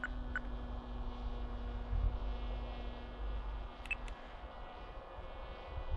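Brushless electric motor and 12x6 propeller of a Zeta FX79 Buffalo flying wing droning steadily as it flies high overhead, over a low rumble. Two brief high chirps come about four seconds in.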